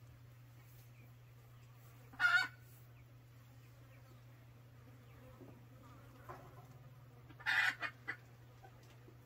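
Chickens calling: one short squawk about two seconds in, then a louder squawk followed by two brief clucks near the end, over a steady low hum.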